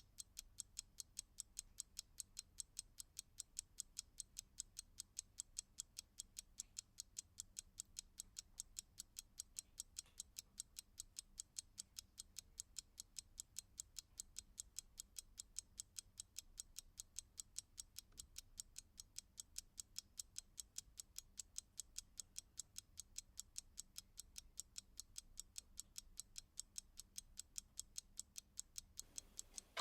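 Clock ticking in a fast, even rhythm of several crisp, high clicks a second.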